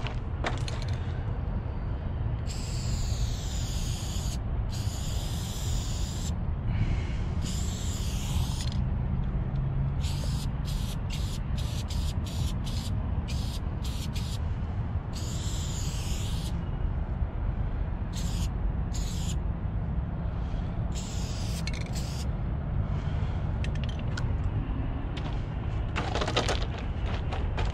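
Aerosol spray-paint can hissing in repeated bursts, some held for a second or two and others quick short spurts, over a steady low rumble.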